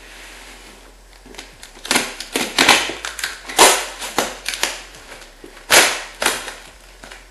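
Scissors cutting through the cardboard and plastic wrap of a shipping box: a run of sharp, irregular cuts starting about two seconds in.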